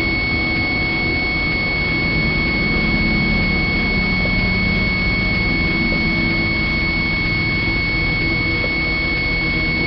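A steady high-pitched tone, held unchanged over a dense low rumbling noise.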